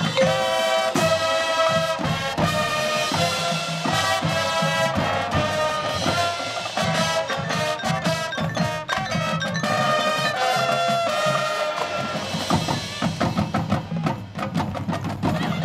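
High school marching band playing: sustained brass chords over marching drums and front-ensemble mallet percussion. About three-quarters of the way through, the brass thins out and the drums carry on.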